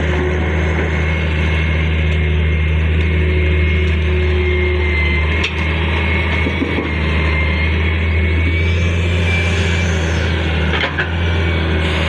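Heavy diesel engine of an excavator or dump truck running steadily, with a faint steady whine above the drone and a couple of brief knocks, one about halfway and one near the end.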